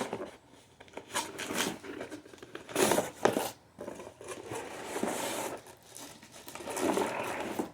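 Cardboard box being opened and rummaged by hand: flaps and packing scraping and rustling, with two louder knocks about three seconds in.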